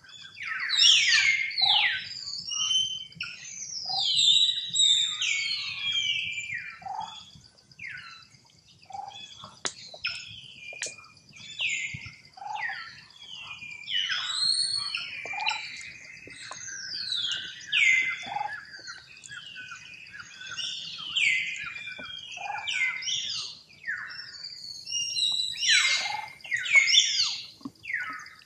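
A young long-tailed macaque screaming over and over while a bigger juvenile pins it down: a dense run of high-pitched shrieks, each sliding down in pitch, through the whole stretch, over a faint steady high whine.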